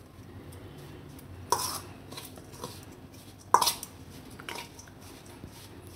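Spoon stirring ground spice powder in a stainless steel bowl, with two sharper knocks of the spoon on the bowl, about one and a half and three and a half seconds in, and a few lighter taps.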